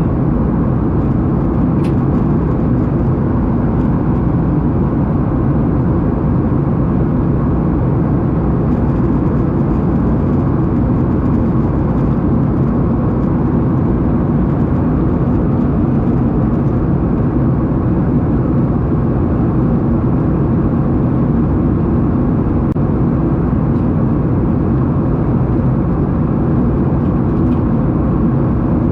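Airliner cabin noise: the jet engines and rushing air make a steady, loud, low-pitched drone that does not change.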